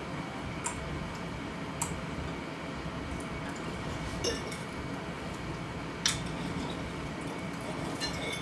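Cutlery clicking against a plate: about five light, sharp clinks spaced a second or two apart, over faint steady background noise.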